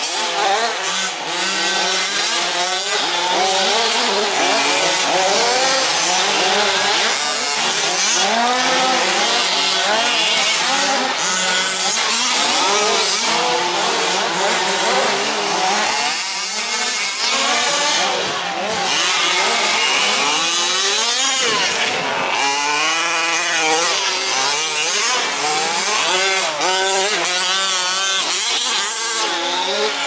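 Several 1/5-scale RC racing trucks' small two-stroke petrol engines revving hard and easing off as they race, their whining pitches rising and falling in overlapping waves.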